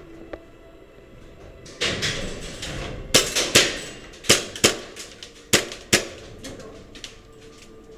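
Airsoft gunfire in a game: a noisy burst about two seconds in, then about six sharp cracks of shots and BBs striking hard surfaces over the next three seconds.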